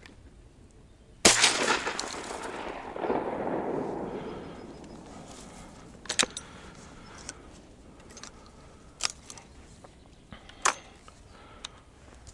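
A single shotgun shot, very loud and sudden, whose sound rolls and echoes away over about three seconds across the open water. A few short, sharp clicks follow later.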